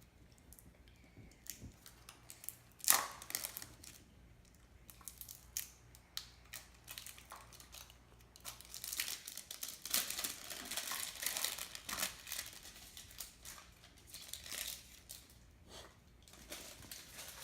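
Packaging of a powder slime kit being opened by hand: irregular rustling and handling noises, with one sharp loud crackle about three seconds in and a dense run of rustling around ten seconds in.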